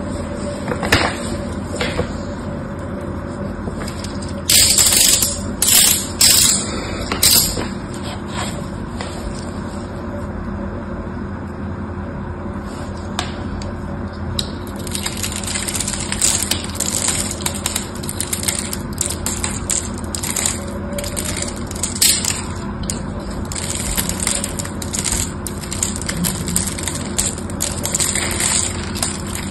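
Utility-knife blade cutting and scraping into hard bars of Fa soap, with crisp crunching and crackling. A few loud scrapes come about five seconds in. From about halfway, a dense run of sharp crackles follows as scored soap cubes break and crumble off the bar.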